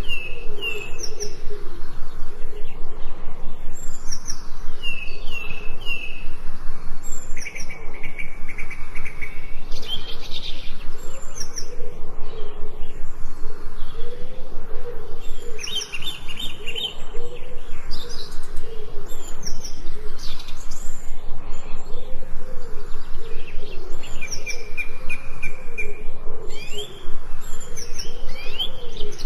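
Several songbirds chirping and singing in short whistled calls and trills that come and go throughout, over a continuous lower wavering sound that pulses several times a second.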